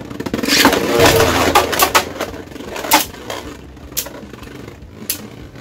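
Two Beyblade Burst tops, Helios Volcano and Hyperion Burn, spinning in a plastic stadium bowl, which spin in opposite directions. A loud scraping rattle in the first second or so gives way to several sharp clacks as the tops collide.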